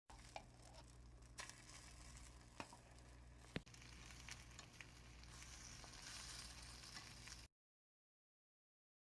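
Food sizzling in a hot pan: a steady hiss that grows stronger in the highs near the end, with a few sharp clicks and ticks. It cuts off abruptly.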